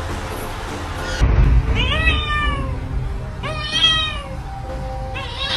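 A tabby cat meowing: three drawn-out meows, each rising and then falling in pitch, the first coming about two seconds in.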